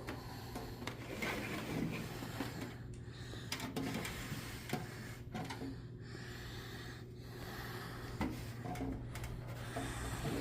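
Handling noises as the Dell Dimension 2400 desktop case is opened: uneven rubbing and scraping of the case panels, with a few light clicks, over a steady low hum.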